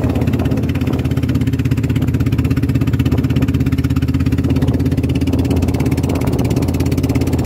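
Small boat engine running steadily at cruising speed, with water splashing and rushing along the hull as the boat cuts through choppy waves.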